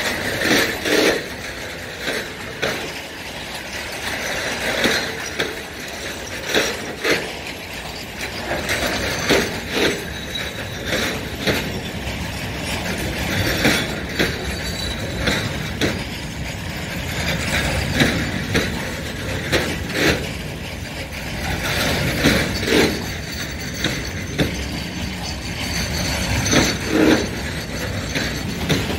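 Freight train of open high-sided coal wagons rolling past close by: a steady rumble of steel wheels on rail, broken by frequent irregular clacks and knocks from the wheelsets and couplings.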